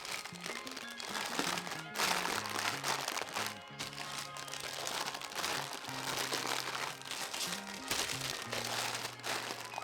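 Background music with a steady, stepping bass line, over the crinkling of plastic bags holding a model kit's parts as they are handled.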